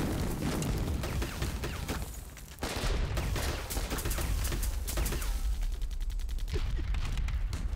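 Battle gunfire on a war-film soundtrack: a dense run of rapid shots over a deep rumble. It eases briefly about two seconds in, then comes back louder.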